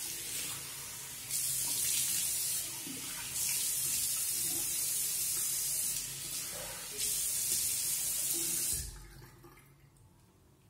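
Bathroom tap running into the sink while the face is rinsed of shaving cream between razor passes. The water sound swells and drops in three louder spells, then stops about nine seconds in.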